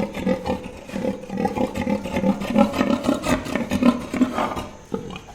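Pig grunting in a dense run of rough, pulsing calls.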